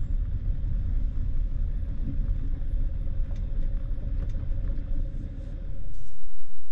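Low rumble of a vehicle rolling slowly over a gravel lot as it pulls up, with a faint steady hum. About six seconds in the rumble drops away and a louder noise without it takes over.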